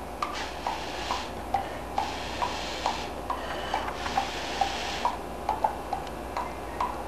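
Three long puffs of breath blown through a drinking straw, each a hiss of about a second, pushing drops of alcohol ink out across glossy paper. Light ticks sound in between.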